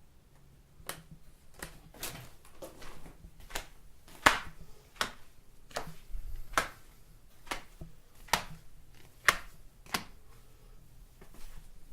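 Footsteps in soft home slippers: a string of short slaps and scuffs at a walking pace, about fifteen steps.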